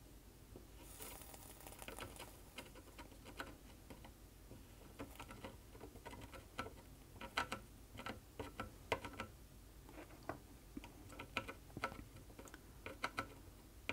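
Faint, irregular crackling and ticking of flux spitting and sizzling under a soldering iron tip as it heats solder on a circuit-board chip's pins, with a few louder crackles about halfway through.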